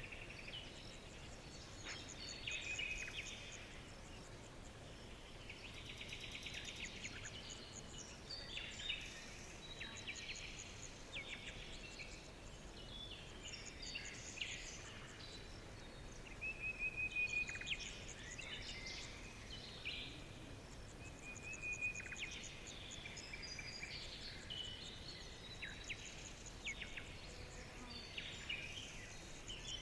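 A chorus of several forest songbirds singing at once: rapid chips and trills overlapping with short, level whistled notes. The singing is busiest and loudest about halfway through.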